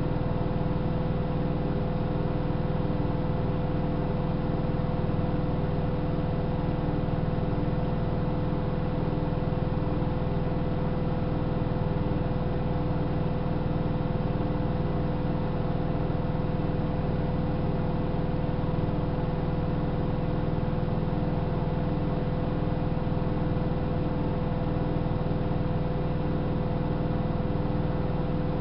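Hanseatic HWM814A3D washing machine spinning at a constant speed: a steady motor hum and whine with no pauses or drum reversals.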